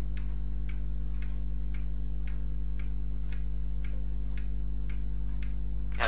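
Evenly spaced ticks, about two a second, over a steady low electrical hum.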